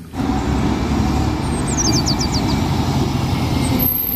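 Double-decker bus engine running as the bus drives along the road: a steady drone with a low hum.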